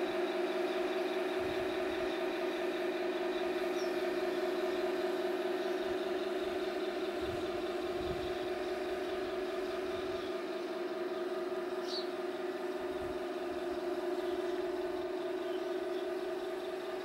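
Tamiya 1/16 full-option radio-controlled Tiger I tank driving on grass, giving a steady engine-like drone that holds one pitch throughout.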